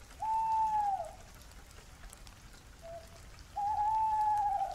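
Steady rain with two long, level-pitched animal calls, each lasting about a second and dropping slightly at the end, and a short fainter call between them.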